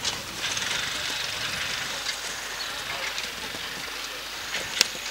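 A horse cantering on grass and jumping a fence, its hoofbeats faint under a steady hiss of outdoor arena noise, with one sharp knock near the end.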